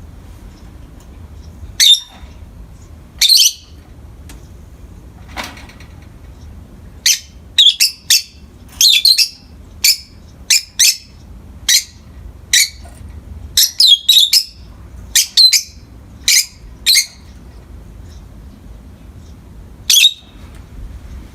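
Peach-faced lovebirds giving short, sharp, high chirps: a few spaced calls at first, then a quick run of them in the middle, and a last one near the end.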